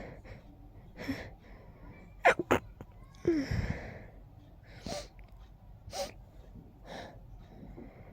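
A person sneezing with a stuffed, congested nose: a sharp sneeze a little over two seconds in, a longer, loud burst right after, then shorter breathy sounds spaced about a second apart.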